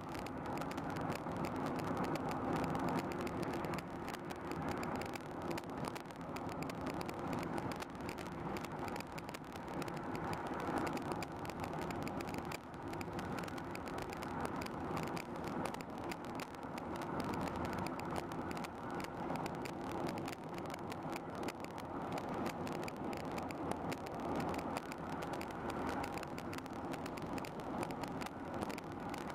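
Steady hum of a vehicle engine running, with no sharp events.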